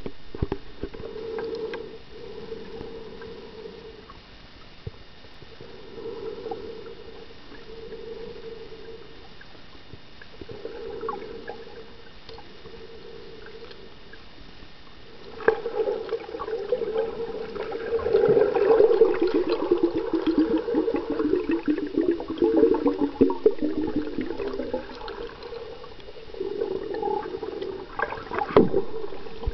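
Underwater sound picked up by a snorkeler's camera: muffled water movement and gurgling, with a dull tone swelling and fading every few seconds. About halfway through it turns louder and crackly.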